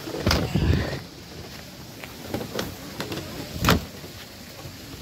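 Footsteps thumping down a flight of stairs at an uneven pace, with a cluster of steps just after the start and the heaviest footfall a little before the four-second mark.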